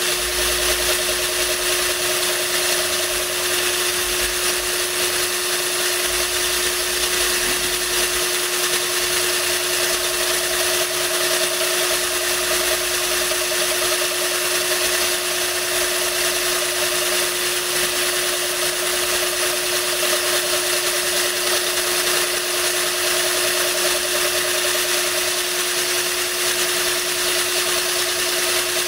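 Power drill running steadily as its bit grinds into a glass bottle, with a steady hiss of water from a hose spray nozzle running over the cut to keep it cool.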